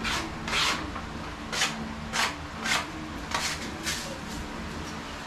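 Putty knife scraping skim-coat putty across a painted wall in short repeated strokes, about six scrapes in five seconds, as patches are filled and levelled.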